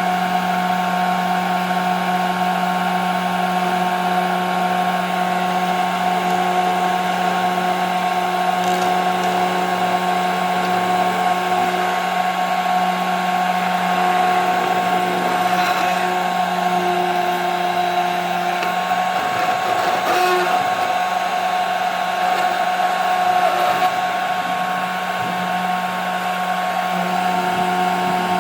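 CNC router spindle running steadily, a constant whine over a low hum, while machining 5 mm plexiglass; a few faint ticks around the middle.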